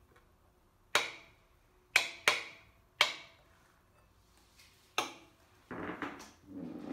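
Metal spoon striking a ceramic bowl while eating: five sharp clinks that ring briefly, two of them close together, followed near the end by two short rougher scraping sounds.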